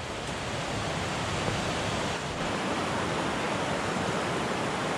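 Shallow river rushing over rocks, a steady even rush of water.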